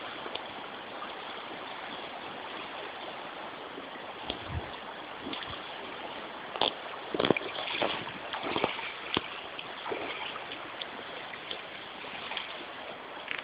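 Steady rush of river current flowing past, with a scatter of short knocks and clicks in the middle.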